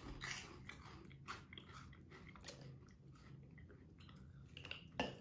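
Faint chewing and crunching of puffed cheese balls, a scatter of irregular crisp clicks with one sharper crunch near the end.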